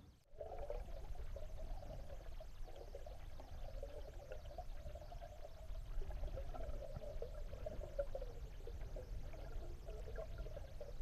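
Water trickling and gurgling close by, a steady bubbling over a low rumble, starting after a short break at the very beginning.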